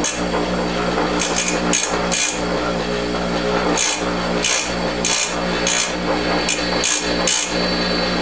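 A bench grinder's motor runs with a steady hum while the tip of a flat-blade screwdriver is touched to the grinding wheel about ten times, each touch a short, hissing grind. The steel tip is being ground square to clear a notch in it.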